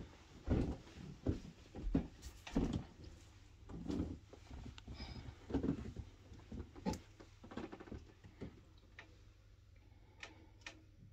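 Quiet, irregular footsteps and soft knocks in a small room, followed near the end by a few sharp clicks.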